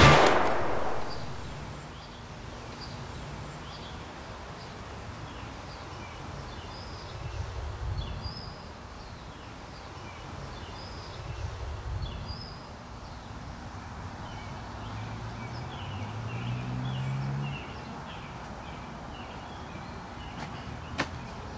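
Outdoor ambience: small birds chirping over a steady background hiss. A low hum swells and fades about two-thirds of the way through, and a few sharp knocks come near the end.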